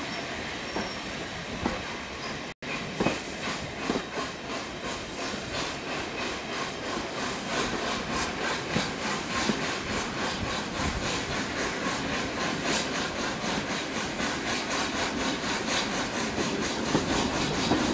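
A steam-hauled heritage passenger train running slowly over jointed track and pointwork, its coach wheels clicking in a quick regular rhythm over a steady rumble, heard from an open carriage window. The sound cuts out for an instant about two and a half seconds in.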